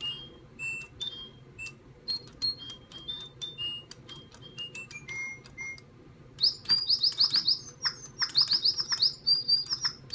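Two Spin Master DigiBirds electronic toy birds tweeting together: a string of short whistled notes stepping down in pitch, then quick runs of rising chirps from about six seconds in.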